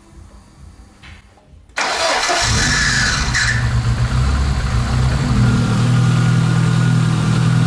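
Car engine cranked on the starter about two seconds in, catching almost at once and settling into a steady idle. Its oil is diluted with diesel fuel for an engine flush.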